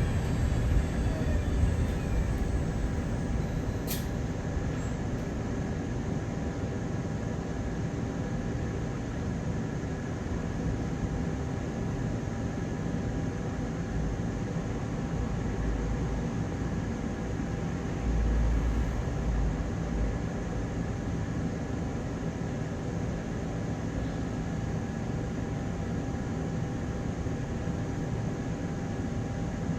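Inside a London double-decker bus on the move: a steady drone from the engine and its radiator cooling fan, with a constant whine running through it. There is a sharp click about four seconds in and a heavier low rumble around two-thirds of the way through.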